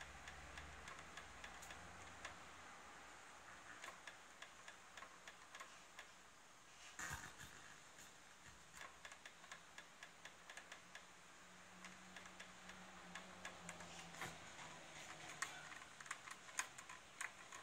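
Faint, irregular light clicks, some in quick runs, as the tuning button of a Sansui T-1000 digital FM tuner is pressed repeatedly to step through the band, over a faint steady hiss.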